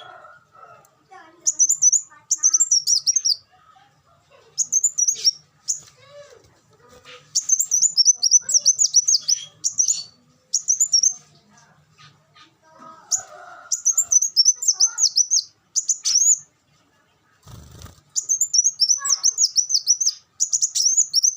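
Kolibri wulung sunbird singing: phrases of rapid, high-pitched twittering chirps, each a second or two long, repeated over and over with short pauses between. A brief low thump comes near the end.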